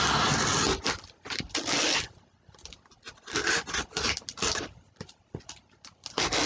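Mail-package wrapping being torn open and rustled by hand, in scratchy bursts with short quiet gaps and a few small clicks near the end.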